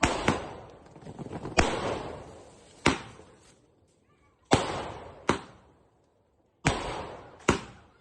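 Aerial sky-shot fireworks going off: about eight sharp bangs, mostly in pairs less than a second apart, each fading away over a second or so.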